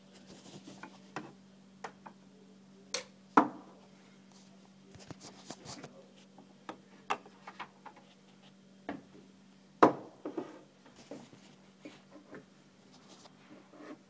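Scattered knocks and clinks of cups and objects being handled on a counter, two of them louder about three seconds and ten seconds in, over a faint steady low hum that stops near the end.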